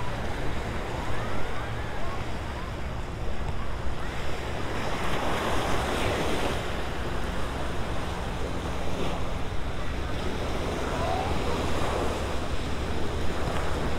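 Small surf on the Gulf of Mexico shore, waves washing up on the sand, with wind rumbling on the microphone. A louder wave wash swells up about five seconds in and dies away by seven.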